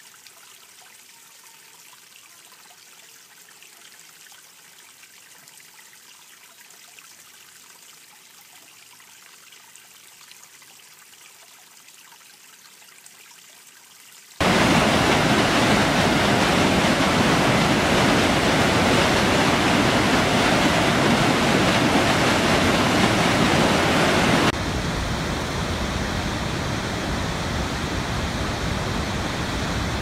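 Running water: first a small creek trickling faintly over rocks. About a third of the way in it cuts suddenly to loud rushing white water. Two thirds of the way in it cuts to a somewhat quieter steady rush of falling water.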